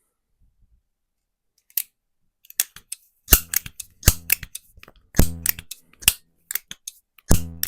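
Hawthorne M130 .22 multi-pump pellet pistol being pumped: a single sharp click, then metallic clicks and heavier clunks of the pump lever about once a second, several strokes in a row.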